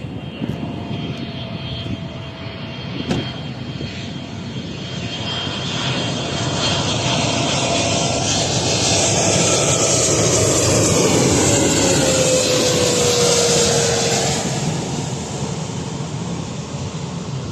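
Airliner passing over on its landing approach: its engine noise swells to a peak about halfway through and then fades, with an engine tone that falls in pitch as it goes by.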